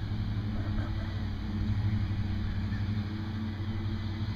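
A steady low mechanical hum, like a motor running, with no break or change.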